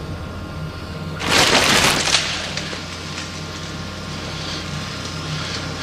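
A sudden loud crash, like something breaking, about a second in and lasting under a second, with a smaller knock just after. A steady low hum runs beneath.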